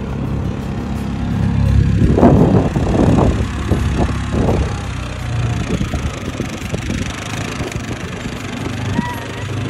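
Off-road utility vehicle's engine running steadily, louder and rougher for a couple of seconds about two seconds in.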